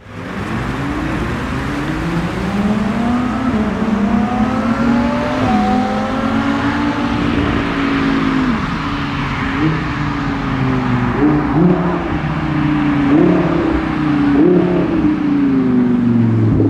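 Several sports car engines approaching in a group, led by an Audi R8's V10. In the second half, one engine climbs in pitch and drops sharply several times, pulling through upshifts under acceleration.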